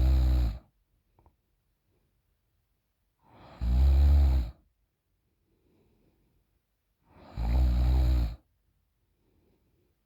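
A woman snoring deeply with her mouth open: a low snore fades out just after the start, then two more loud snores follow about three and a half seconds apart, with faint breathing between them.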